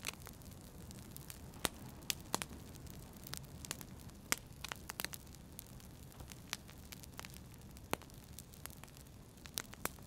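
Wood fire crackling in a fireplace: irregular sharp pops and snaps over a low, steady rumble of the burning logs.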